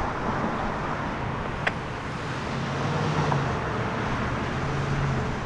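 Road traffic noise: a steady low rumble with a faint hum, and one sharp click about a second and a half in.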